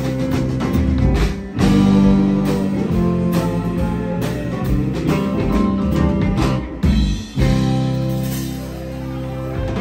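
Live rock band playing electric guitars, bass and drums. There is a short break about seven seconds in, then a held chord.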